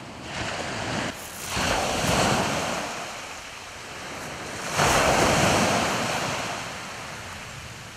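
Sea waves breaking and washing up a shingle beach: two surges about three seconds apart, the second louder, then a slow fade.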